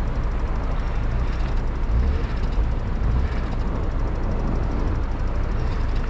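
Steady low rumble and road noise of a car driving.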